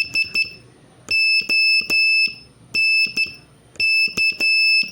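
Morse code practice tone: one steady high-pitched beep keyed on and off, sending the word HONK. Four short dits, then three long dahs, then dah-dit, then dah-dit-dah.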